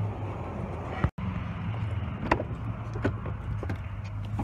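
Car idling: a steady low hum that cuts out for an instant about a second in and then carries on as heard inside the cabin, with a few light clicks and knocks.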